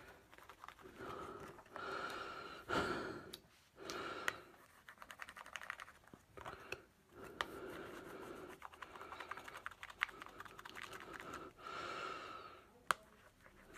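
Scissor blades scraping across the plastic surface of a DVD in repeated strokes of about a second each, with sharp clicks and taps between strokes.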